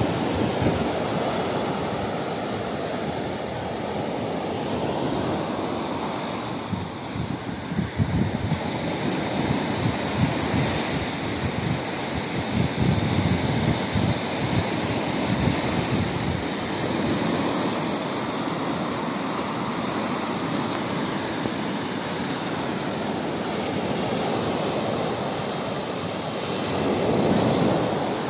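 Wind buffeting the microphone outdoors: a continuous rushing noise with irregular, gusty low rumbles that swell and fade.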